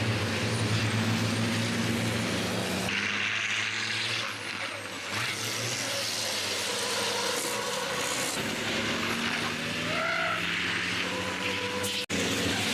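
Racing trucks' turbodiesel engines running at speed as the trucks pass. The engine note jumps abruptly a couple of times, and there is a brief dropout near the end.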